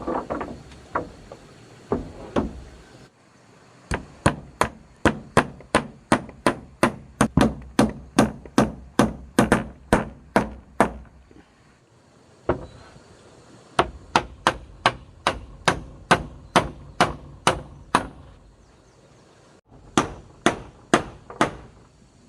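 Hammer blows struck in steady runs of about three a second, with short pauses between the runs.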